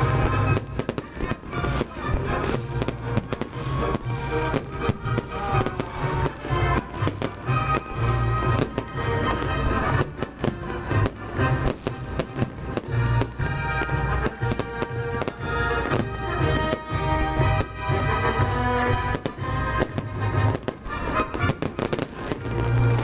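Fireworks display: rapid, continuous bangs and crackles of bursting shells, with music playing underneath.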